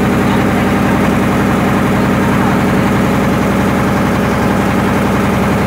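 Single-cylinder diesel engine of a wooden popopo riverboat running steadily under way, its fast, even firing beat, the 'po-po-po' that gives the boat its name, holding constant throughout.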